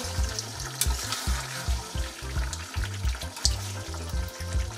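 Chicken pieces sizzling in a thick masala in an aluminium kadai as they are slow-fried (kosha), while a metal spatula stirs and scrapes them, with a few sharp clicks of the spatula against the pan. Low background music runs underneath.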